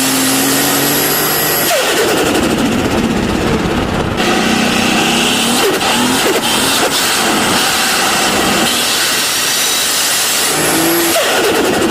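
Turbocharged car engine revving, a thin high turbo whistle rising over it as boost builds. The revs fall sharply as the throttle is released, about two seconds in and again near the end.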